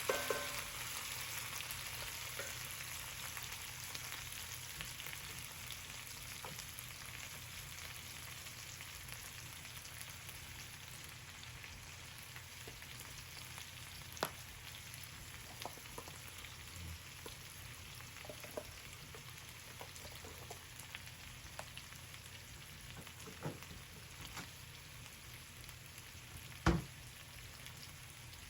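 Food sizzling in a frying pan, a steady hiss that slowly dies down, with scattered small clicks of cooking and one sharp knock near the end.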